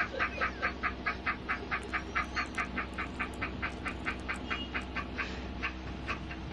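A man laughing in quick, even, high-pitched pulses, about five a second, from a laughing-man meme clip; the laugh thins out near the end.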